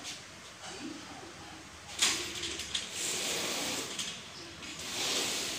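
Pleated insect mesh screen panels sliding along their door tracks, a hissing, rushing slide, with a sharp clack about two seconds in.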